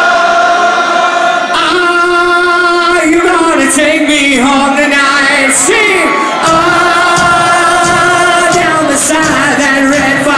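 Live rock band with a male lead singer holding long notes into the microphone, the pitch sliding once about six seconds in; the bass end of the band fills in from there.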